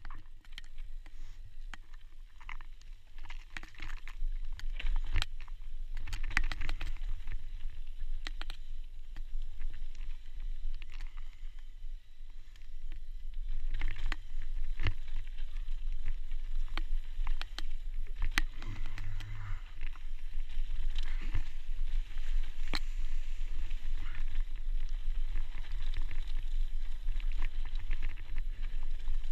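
Mountain bike rolling fast down a loose, dry dirt trail: tyres crunching over dirt and stones, the bike rattling with many sharp clicks and knocks, over a steady low rumble. It gets louder about halfway through.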